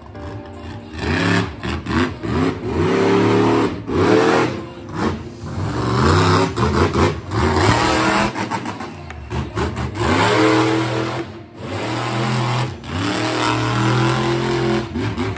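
Monster truck engine revving hard in repeated surges, the pitch climbing and falling with each stab of the throttle as the truck drives and wheelies.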